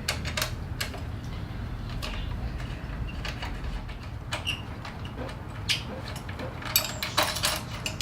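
Allen wrench and pliers working on the handlebar riser clamp bolts: scattered metallic clicks and knocks, closer together near the end, over a steady low hum.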